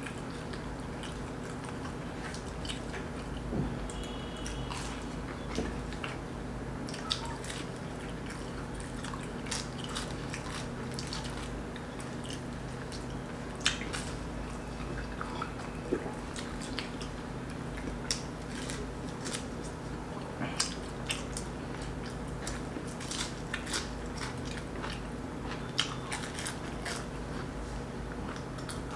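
Two people eating fried samosas: biting and chewing, with irregular crunches of the crisp pastry throughout. A steady low hum lies underneath.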